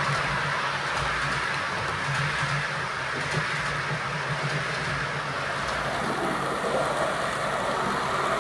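Model freight train running on the layout's track: a steady rolling noise of metal wheels on the rails over a low electric motor hum.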